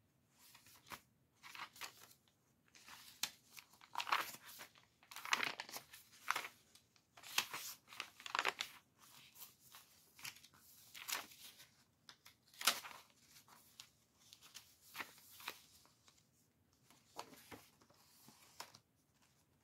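Paper pages of a handmade junk journal being turned one after another by hand: a string of short, irregular papery rustles and flicks with brief pauses between.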